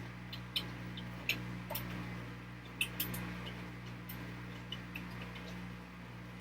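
Washing machine running its rinse cycle: a steady low motor hum under irregular light clicks and ticks.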